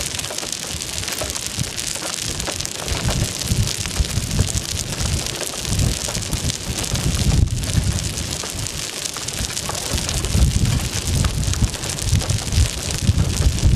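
Steady hiss of rain falling, with uneven gusts of wind rumbling against the microphone, the gusts stronger in the second half.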